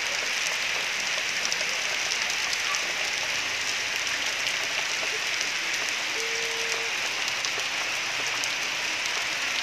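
Steady, even hiss of outdoor background noise, with one short tone about six seconds in.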